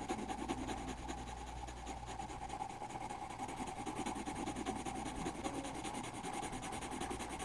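Grey coloured pencil shading on drawing-pad paper: a steady run of quick back-and-forth strokes, a soft rapid scratching.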